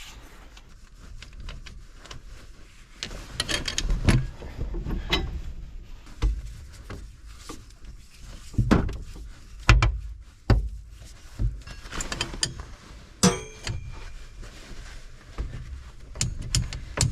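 Irregular clinks, knocks and thumps of metal parts and tools being handled while a new crimped hydraulic hose is fitted to a mini excavator, with one short ringing metallic clank about two-thirds of the way through.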